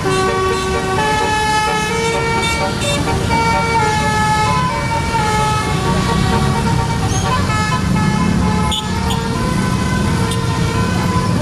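Bus telolet horn, a multi-tone air horn, playing a tune of held notes that step in pitch every fraction of a second, over the low rumble of the bus engine.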